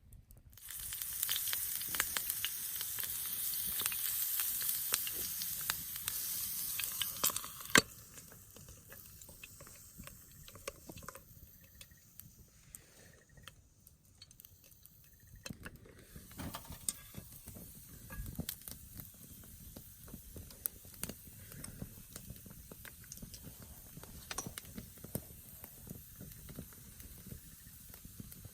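A loud steady hiss for the first seven seconds or so, cutting off, then quieter scattered crackles and pops, like something sizzling.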